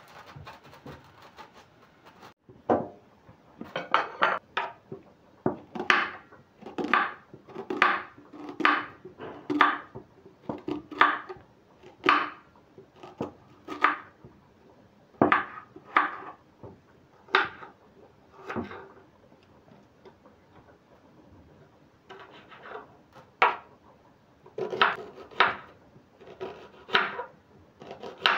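Kitchen knife slicing a red onion on a wooden cutting board, the blade knocking the board with each cut, about one to two cuts a second. The cutting stops for a few seconds about two-thirds through, then starts again.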